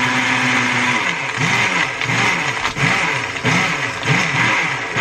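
Black+Decker countertop blender running at full speed, crushing ice with Kool-Aid and vodka into a slush. The motor holds a steady pitch for about a second, then dips and recovers about twice a second.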